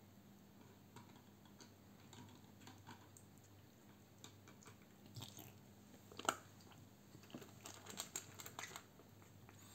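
A cat lapping water, then chewing food from a stainless steel bowl: faint scattered clicks, one sharp knock about six seconds in, and a quick run of chewing clicks near the end. A faint steady low hum runs underneath.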